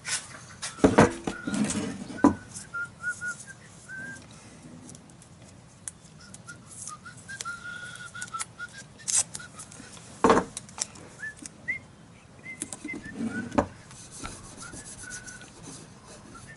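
Masking tape being pulled off its roll and pressed down by hand: several sharp ripping crackles with rubbing between them. Under it, a soft whistled melody of held notes.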